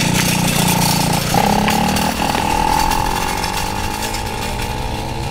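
Two-stroke kart engines running at high revs, a buzzing note that holds steady and then sinks slowly in pitch, with several engines overlapping toward the end.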